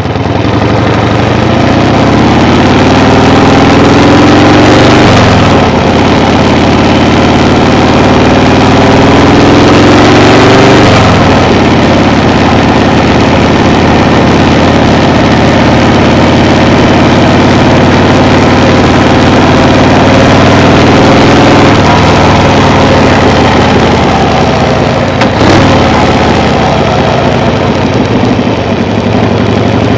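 A vehicle engine running under way and pulling through the gears. Its pitch climbs twice and drops at each shift, about five and eleven seconds in, then holds steady before easing off a little past the twenty-second mark. A short sharp knock comes near the end.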